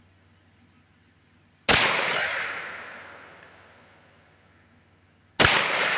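Two pistol shots from a CZ52 firing 7.62×25mm Tokarev hollow points, a little under four seconds apart. Each is a sharp crack that trails off in a long echo.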